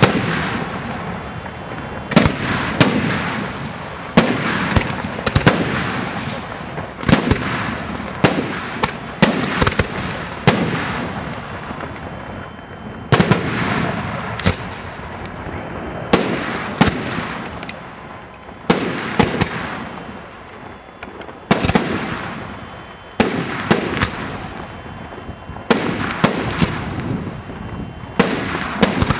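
Aerial firework shells bursting in quick succession, roughly one sharp bang a second, each trailing off in an echo, with a brief lull about two-thirds through.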